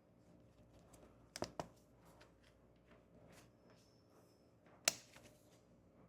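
Faint rustling from a leather wallet and its packaging being handled, with a quick double click about a second and a half in and one sharp click near five seconds, the loudest sound.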